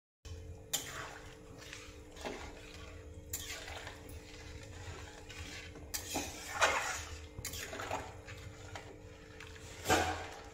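Metal spatula stirring and scraping a thin, watery curry in an aluminium kadhai, the liquid sloshing with each stroke. The strokes come in irregular bursts, the loudest about six and ten seconds in.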